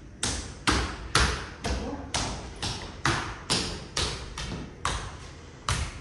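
Footsteps, a steady run of sharp, hard-soled steps at about two a second.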